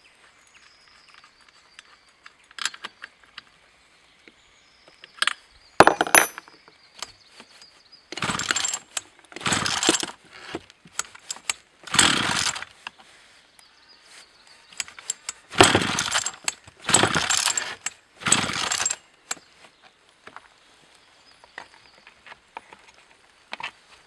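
Chainsaw's recoil starter pulled about six times, each pull a short whirring rasp, with a sharp knock before the first pull; the two-stroke engine does not catch.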